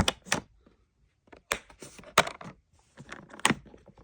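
Handling of an opened plastic tool case and the ratchet wrench and sockets inside it: a handful of sharp, uneven clicks and knocks of hard plastic and metal, with a short pause about a second in.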